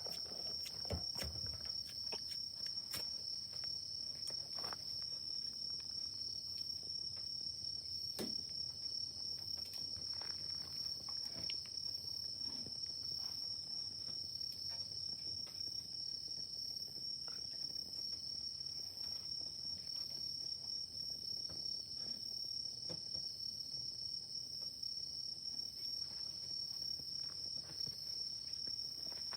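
Insects trilling, a steady high-pitched ring that does not change, with scattered small clicks and knocks, most of them in the first few seconds.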